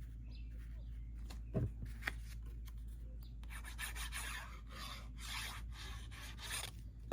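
Hands sliding and rubbing a paper panel on a card to press it into place on slippery wet glue: scratchy paper rubbing, heaviest in the second half, with a brief low thump about one and a half seconds in.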